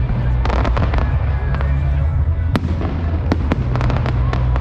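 Fireworks going off in the air: a quick run of crackles about half a second in, then several single sharp bangs, over music with a heavy, steady bass.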